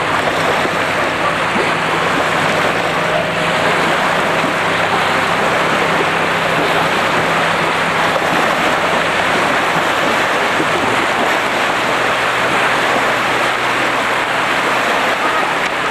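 Steady rush of water and wind over the low steady hum of a motorboat engine, heard from aboard the boat as it moves across the lake.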